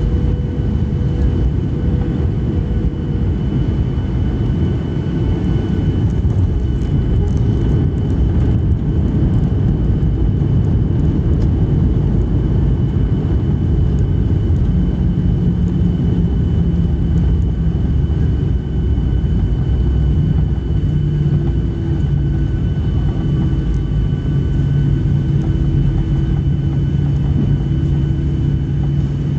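Cabin noise of a Boeing 737 rolling along the ground after landing, heard from a seat over the wing: a steady loud rumble of the jet engines and wheels, with a faint steady high whine. A low hum comes in about halfway through.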